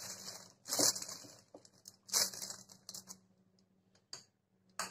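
A metal spoon scooping whipped cream from a glass bowl into a plastic piping bag: a few short scrapes and taps of the spoon, with rustling of the plastic bag.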